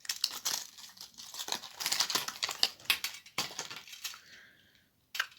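Packaging crinkling and rustling, with crackling clicks, as a miniature Rubik's cube is unboxed by hand. The handling dies down about four seconds in, and there is one sharp click near the end.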